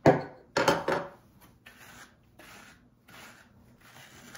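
A Tangle Teezer plastic detangling hairbrush drawn through long hair in repeated soft rasping strokes, about one to two a second. Two loud handling sounds of the packaging and brush being set down come in the first second.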